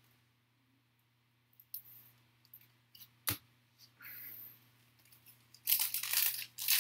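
A foil trading-card pack being handled, with a few small taps and one sharp click. Then, from about two-thirds of the way in, crinkling and tearing of the foil wrapper as the pack is ripped open.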